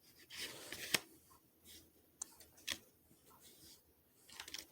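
Faint rustling and a few short clicks of trading cards being handled and flipped through, with a sharper tick about a second in.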